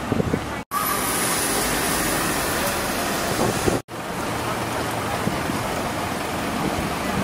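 City street ambience: steady traffic noise with faint voices of passers-by. The sound drops out for an instant twice, about a second in and near four seconds, where shots are cut together.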